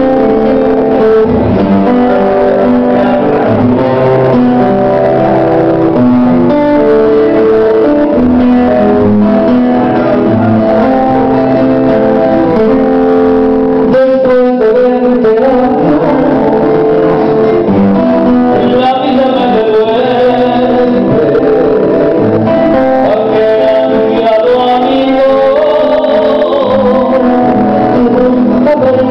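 Live acoustic guitar music with a man singing.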